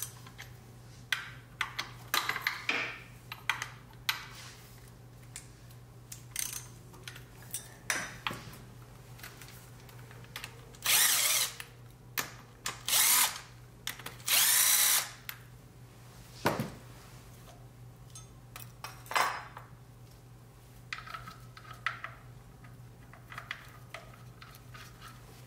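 Cordless drill with a socket spinning out the bolts of an engine bracket in three short runs about midway. Before them come ratchet clicks and metal clinks of tools on the bolts, and lighter clinks of loose bolts and bracket being handled near the end.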